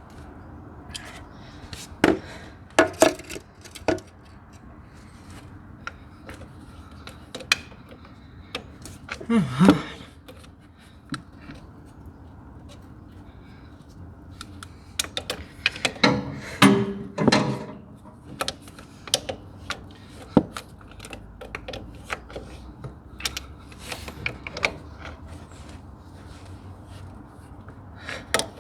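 Scattered clinks, clicks and knocks of hand tools and loose parts being handled on the skid steer's diesel engine while its rocker arms and push rods are worked on, with a louder run of knocks about sixteen seconds in.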